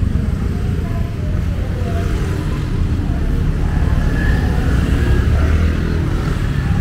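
Road traffic: a steady low rumble of passing vehicles, with people's voices in the background.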